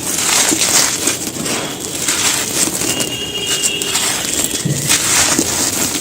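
Dry, gritty handmade cement pieces being crushed and crumbled by hand, a continuous dense crunching and crackling.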